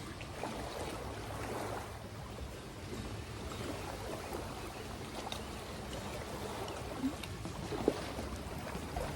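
Lake water splashing and lapping at the bank while a hooked channel catfish is fought in on rod and reel, with two sharp clicks near the end.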